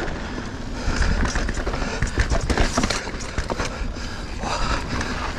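Mountain bike ridden over rough singletrack: tyres rolling on dirt and roots, with frequent clattering knocks from the bike, over a steady low rumble.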